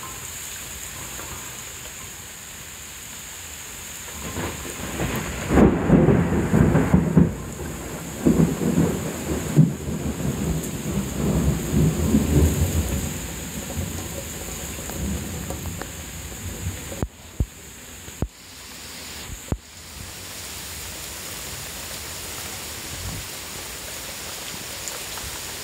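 Heavy rain falling steadily, with a long rolling peal of thunder that builds about four seconds in, rumbles loudest for several seconds, and dies away by about the middle.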